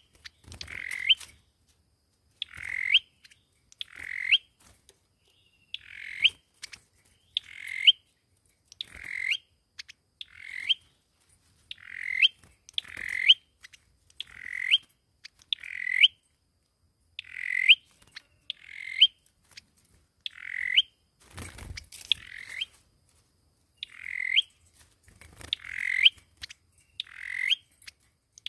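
A sâu dừa songbird calls over and over, a short note ending in a sharp upward flick, about once every second and a bit, in a steady run like a lure call.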